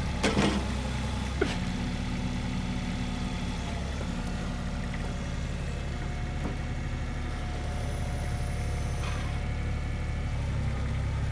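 A compact diesel excavator's engine running steadily at working speed.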